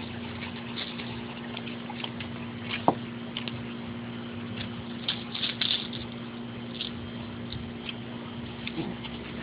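Puppies playing: scattered light scuffles and short high clicks, with one sharp tap about three seconds in, over a steady low hum.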